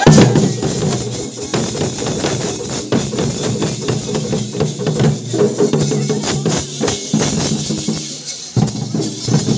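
Several large barrel drums beaten with sticks in a fast, steady rhythm, with a held melody line running alongside the beats.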